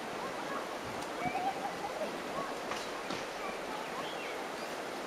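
Shallow river water running over rocks in small rapids: a steady, even rush of water, with faint distant voices.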